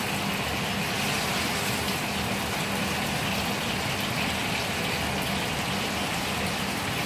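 Salmon pieces sizzling steadily in hot oil in a wok, over a constant low hum.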